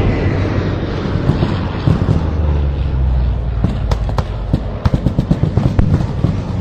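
Fighter jet flying past: a loud, steady low rumble of jet engine noise, with a run of sharp crackles about four to six seconds in.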